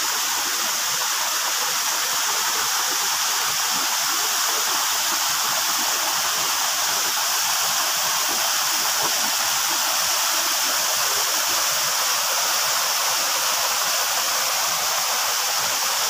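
Waterfall rushing steadily: a constant, unbroken hiss of falling water.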